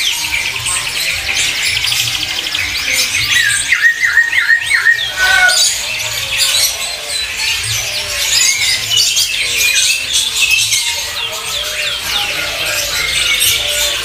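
Dense chorus of many caged songbirds, canaries among them, chirping and trilling all at once, with a run of louder repeated notes about four seconds in.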